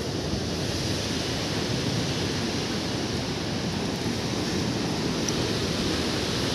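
Steady roar of floodwater pouring out through a dam's spillway.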